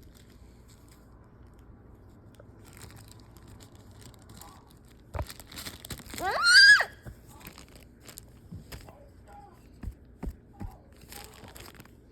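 A child's short, high squeal rising sharply in pitch about six seconds in, the loudest thing here, amid scattered soft clicks and crinkles of handling.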